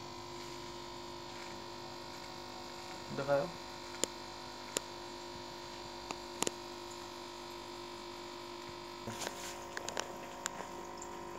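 Aquarium pump running with a steady electric hum, with a few faint clicks.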